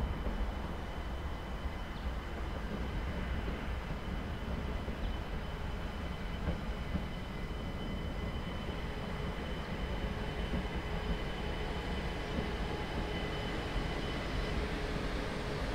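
SNCB AM08 Desiro electric multiple unit pulling into the station and running past close by: a steady rumble with a thin high whine throughout, and a lower whine coming in about halfway.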